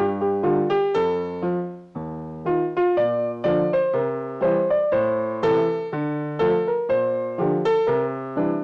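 Piano playing a hymn tune in chords, instrumental with no singing, a new chord or note struck about twice a second.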